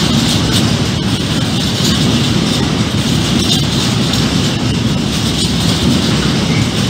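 Freight train of hopper wagons passing close by at speed: a loud, steady rolling rumble of steel wheels on the rails with the rattle of the wagons.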